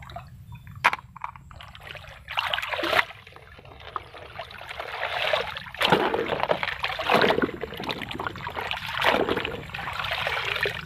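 Shallow stream water splashing and sloshing as a hand drags a plastic toy truck through it, in irregular surges that grow busier from about halfway. A sharp click about a second in.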